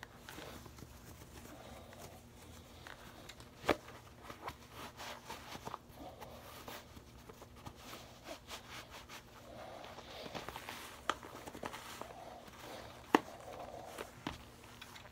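Soft rustling and scuffing of a white sock being stretched and pulled over a sneaker by hand, with scattered sharp taps; two louder ones come about four seconds in and near the end.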